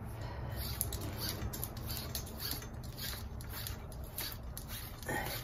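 Rope being pulled by hand through a small sailing pulley block of a 6:1 downhaul: an uneven run of short, high rasps and clicks, two or three a second, as the rope slides over the sheave and the block is handled.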